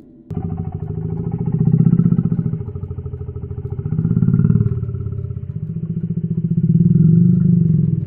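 Reconstructed Carnotaurus call: a low, rapidly pulsing growl that swells and fades three times.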